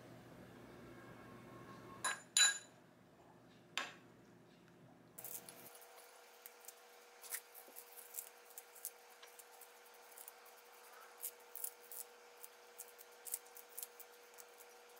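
A metal spoon clinks against a ceramic bowl a few times, one strike ringing briefly, as chili sauce is spooned into a dressing. Then salad leaves are laid on a plate and torn by hand, giving a run of small crisp crackles and snaps over a faint steady hum.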